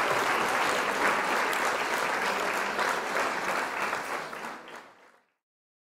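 Audience applause, a dense patter of many clapping hands, fading out to silence about five seconds in.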